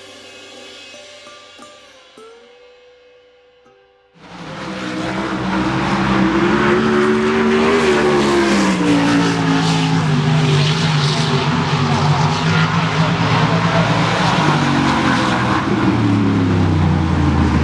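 Guitar music fades out. About four seconds in, a sprint car engine starts up loud and runs on, its pitch rising and falling as it revs.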